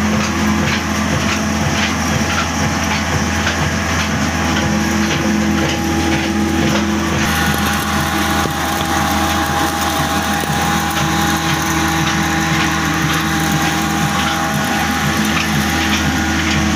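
Old 26 HP diesel engine running steadily at constant speed together with the flour mill it drives, a continuous low mechanical hum with faint regular ticking. The tone shifts slightly about seven seconds in.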